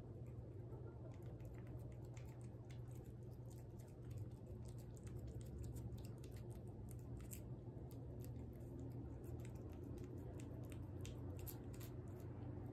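Faint, irregular small clicks and taps, several a second and busier in the second half, over a steady low hum.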